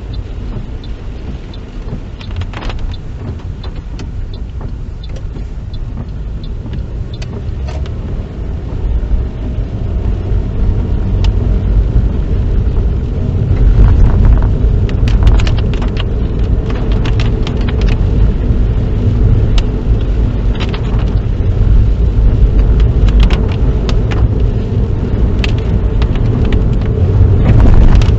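Inside a moving car: steady road and engine rumble that gets louder about ten seconds in as the car picks up speed, with scattered sharp ticks and taps throughout.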